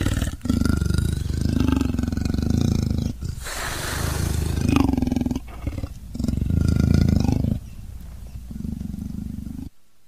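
Leopard growling in several long, harsh, pulsing bouts, with a breathy hissing stretch about three and a half seconds in. The growl cuts off suddenly near the end.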